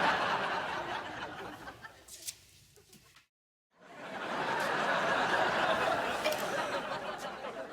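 Sitcom laugh track: a crowd of audience laughter fades out about three seconds in, then after half a second of dead silence a second crowd laugh swells up and slowly dies away.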